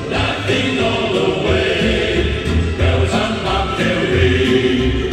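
Choral Christmas music, a choir singing over a band with a steady bass beat, played from a vinyl record on a Technics SL-1200MK3D turntable with an Audio-Technica AT120E cartridge.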